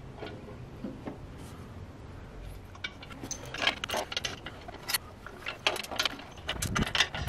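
Intake manifold being set down and positioned on a 7.3 IDI diesel engine: metal clinks and knocks of the manifold and its bolts against the heads. A few faint clicks at first, then a busy run of sharp knocks from about halfway, the loudest near the end.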